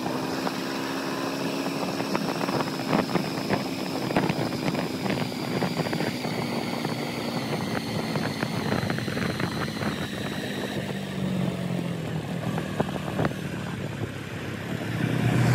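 Motorbike engine running steadily under way, with many irregular knocks over it; the engine note drops lower about eleven seconds in.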